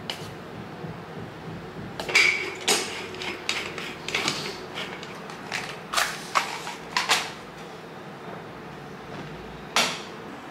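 Clinks and knocks of an aluminium Bialetti moka pot and a coffee tin being handled and set on a gas hob, then a single sharp match strike near the end as the burner is lit.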